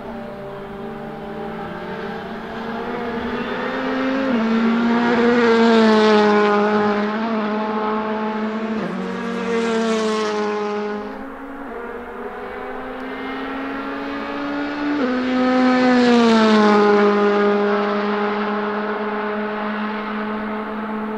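Honda Civic Type-R TC1 touring cars' 1.6-litre turbocharged four-cylinder engines running at high revs. The pitch steps down sharply now and then as the cars change gear. The sound swells as cars pass, loudest about six seconds in and again about sixteen seconds in, with a smaller swell near the ten-second mark.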